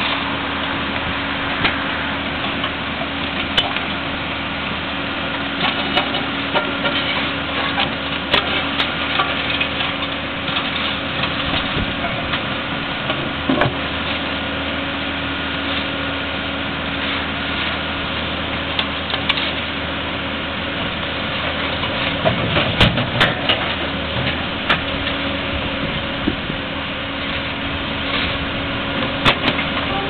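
A John Deere backhoe loader's diesel engine running steadily as it works, with scattered knocks and clunks of broken concrete pavement slabs being picked up and shifted, a cluster of them about three-quarters of the way through.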